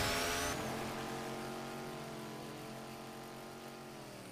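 Chainsaw engine sound effect from the anime's soundtrack, running at a steady pitch and slowly fading, then dropping in pitch as it winds down near the end.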